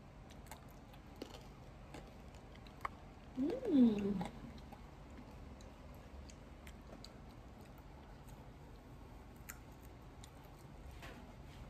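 A person chewing food with faint wet mouth clicks and small ticks scattered throughout. About three and a half seconds in comes one short hummed voice sound, rising then falling in pitch, the loudest thing here.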